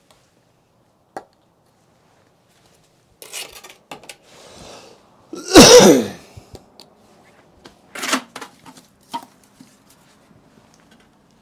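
A man coughs once, loud and explosive, about halfway through, right after a short intake of breath. Around it are brief scrapes and knocks of a brick being handled and fitted into the column.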